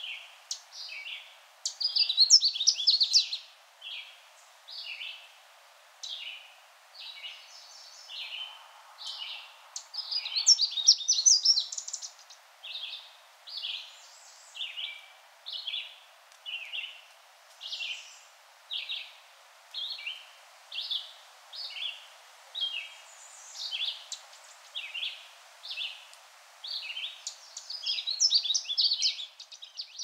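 Canada warbler singing: short high notes about once a second, broken three times by a louder, rapid, jumbled burst of song, near the start, about ten seconds in, and near the end.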